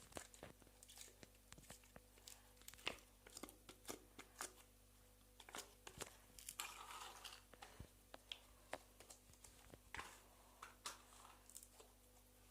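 Slime being squeezed and poked by hand: quiet, irregular clicks, pops and crackles, with a short crinkly squelch about six to seven seconds in.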